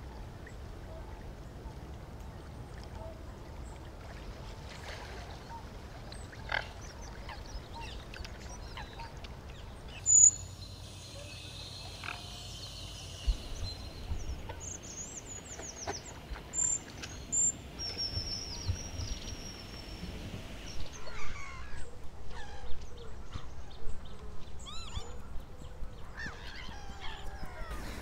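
Wild birds calling: scattered short, high chirps and trills over a steady low background hiss, growing busier and more varied in the last third.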